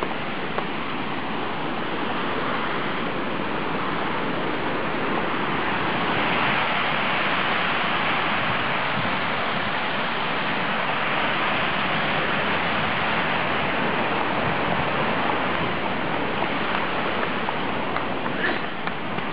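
Flowing water rushing steadily, swelling slightly for a few seconds in the middle.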